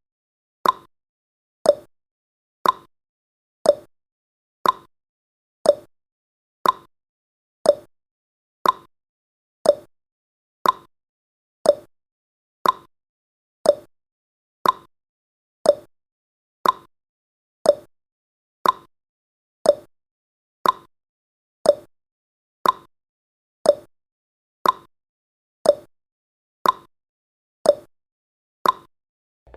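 Clock tick-tock sound effect marking the countdown's seconds: one sharp tick a second, alternating higher and lower in pitch.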